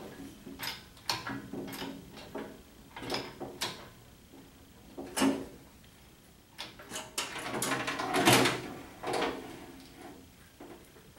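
Scattered metal clanks and knocks as a Ford 8N tractor's sheet-metal hood is worked free and lifted off with an engine hoist, with a sharp knock about five seconds in and a busier run of clattering around eight seconds in.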